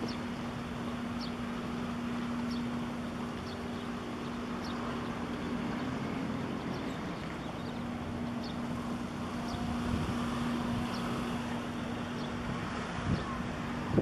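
Steady low drone of a ship's engine, with wind and harbour water noise.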